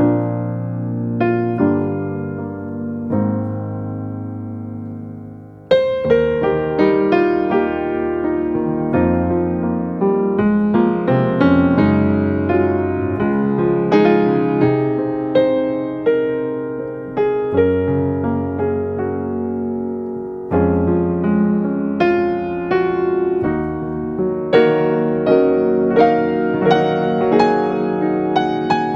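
Solo piano music: a few slow, held chords, then from about six seconds in a livelier run of struck notes.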